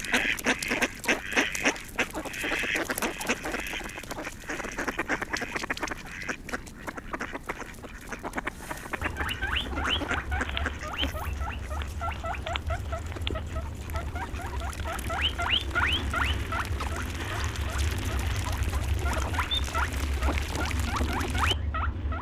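Many birds calling together: rapid, dense calling at first, then many short rising peeps. A steady low hum joins about nine seconds in.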